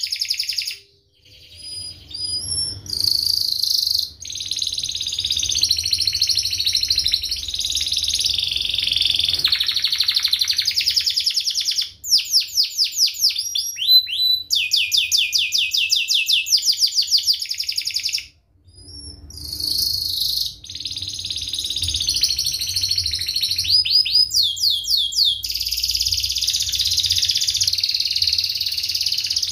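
Domestic canary singing a long, dense, high-pitched song of rolling trills and rapid repeated chirps, with quick falling and rising sweeps. It breaks off briefly about a second in and again just past the middle.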